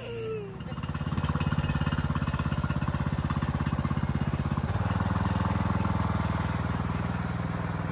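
Yard-Man riding lawn tractor's engine running with a steady, fast pulsing note; the engine note shifts to a different pitch a little past halfway.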